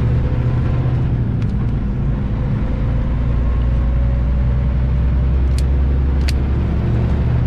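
Inside the cab of a Kenworth semi truck at highway speed: the steady low rumble of the diesel engine and road noise, with a faint engine tone slowly rising as the truck pulls up to speed.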